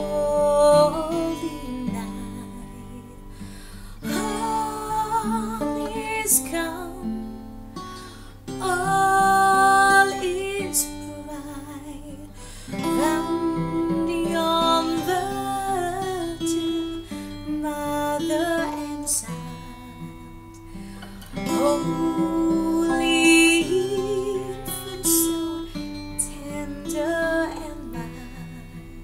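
A woman singing solo in phrases with vibrato over a strummed acoustic guitar accompaniment.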